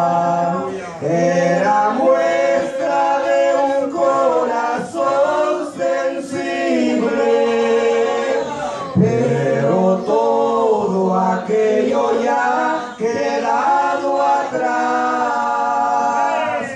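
A man and a woman singing a Spanish-language hymn together into hand microphones, in long held notes.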